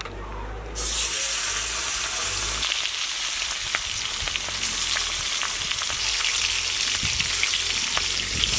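Pieces of rohu fish sizzling as they fry in hot mustard oil in an aluminium kadai. The sizzle starts suddenly about a second in and grows louder as more pieces are dropped in.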